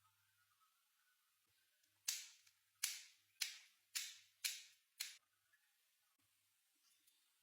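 Six sharp pops in quick succession, about two a second, each dying away fast.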